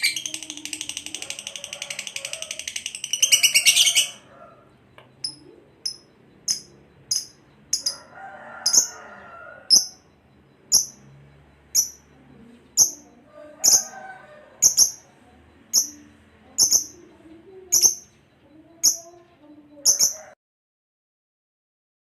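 Lovebird song: a fast, high chattering trill for the first few seconds, then a run of single sharp high chirps about one a second, cutting off suddenly near the end.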